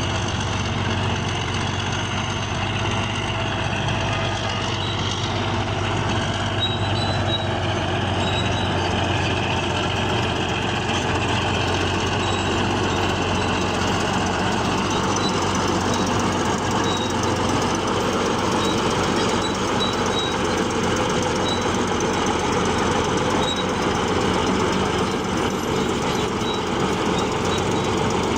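Bulldozer working, its diesel engine running steadily under load, with short high squeaks now and then.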